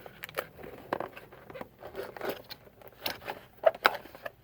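Packaging of a slime kit being opened and handled: irregular crinkling rustles and small clicks, with a couple of sharper clicks near the end.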